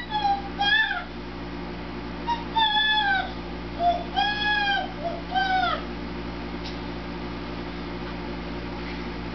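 Baby making high-pitched squeaky 'gremlin' sounds: about six short squeals in the first six seconds, each rising and falling in pitch, then they stop.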